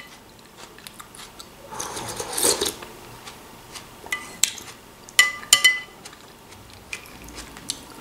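Metal spoon clinking against a glass soup bowl of broth: a few sharp clinks with a brief ring, two of them close together just past the middle. A short noisy scrape of the spoon comes about two seconds in.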